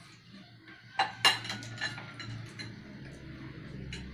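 Metal spoon and fork clinking and scraping on ceramic plates as children eat: two sharp clinks about a second in, a few lighter taps after, and one more near the end.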